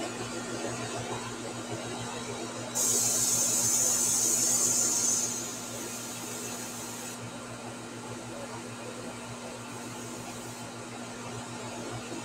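Airbrush hissing as air sprays through it: a sudden loud hiss about three seconds in lasting a couple of seconds, then a softer hiss for about two more seconds and a brief faint one later, over a steady low hum.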